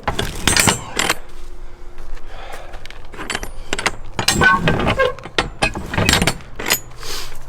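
Metal clinking and rattling: a quick string of sharp clicks and knocks from metal parts being handled.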